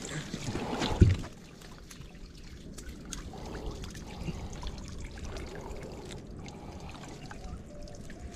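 Water splashing and sloshing as a hand works in shallow water among mangrove roots, with a single loud thump about a second in.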